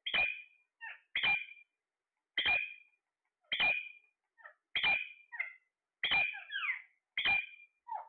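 Alexandrine parakeet calling in a steady series, one loud short call about every second, seven in all, with softer calls in between.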